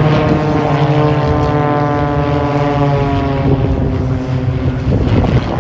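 Propeller airplane flying past, its engine drone sliding gradually lower in pitch as it goes by.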